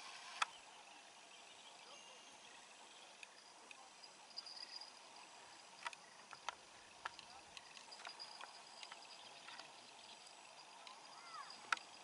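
Faint lakeside ambience: a steady high insect buzz, with scattered faint clicks and a few short chirps near the end.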